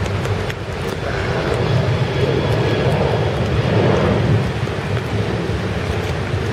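Boeing 737 jet engines at take-off thrust as the airliner climbs away after lift-off: a loud, deep rumbling roar that swells about three to four seconds in.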